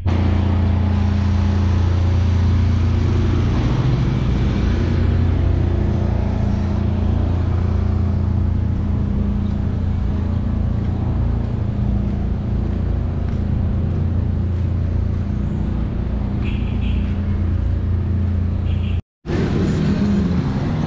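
Street traffic: a steady low hum of motor vehicle engines.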